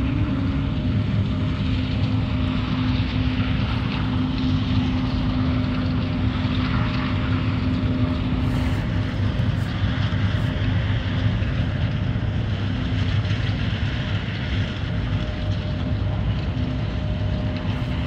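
Steady engine hum, a constant low drone with a held tone over a rushing noise layer, unchanging throughout.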